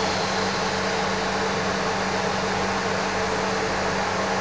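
Two electric locomotives standing with their cooling blowers and transformers running: a steady hum with a low drone.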